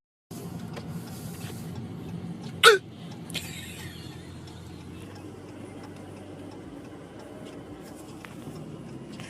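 A man hiccups once, loudly and briefly, about three seconds in, over a steady low background hum.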